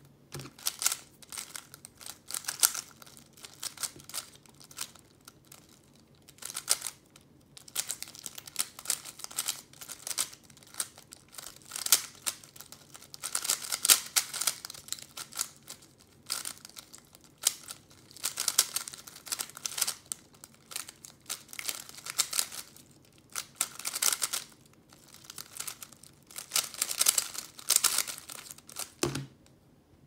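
A plastic GAN 3x3 speedcube being turned fast during a timed solve: bursts of rapid clicking layer turns separated by short pauses. A thump about 29 seconds in marks the end of the solve.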